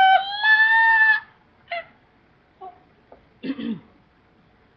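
Unaccompanied voices holding a sung note that ends abruptly about a second in, followed by several short, separate vocal yelps.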